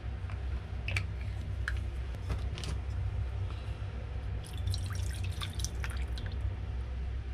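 Water poured into a stainless steel mixing bowl, splashing onto butter at the bottom, in a dense run of splashes from about four and a half to six seconds in, with a few single drips and taps before it. A steady low hum sits underneath.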